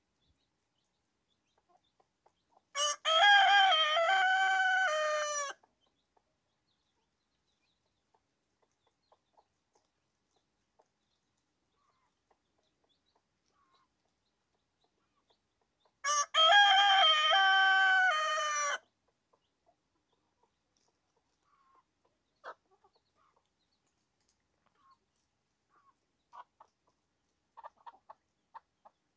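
A rooster crowing twice, each crow about two and a half seconds long, the second about thirteen seconds after the first. Faint short chicken calls follow near the end.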